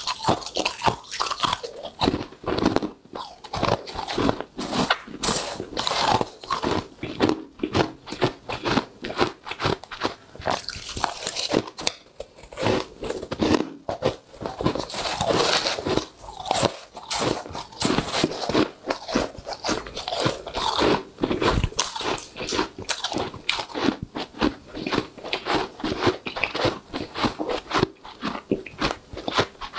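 Powdery freezer frost being bitten and chewed, picked up by a microphone close to the mouth: a dense run of crisp, rapid crunches.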